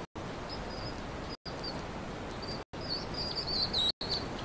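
Baby hedgehog peeping: faint, short, high-pitched chirps over a steady hiss, coming quicker and louder about three seconds in.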